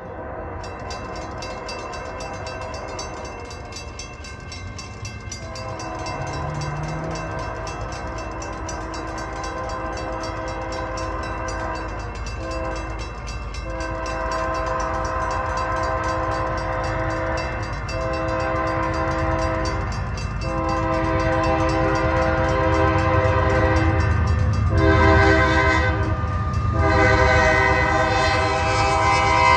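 Union Pacific freight's lead GE AC44 locomotive sounding its horn for a grade crossing in a series of long blasts, a short blast just before the last long one, getting louder as the train nears. The crossing bell rings throughout, and the train's low rumble rises near the end.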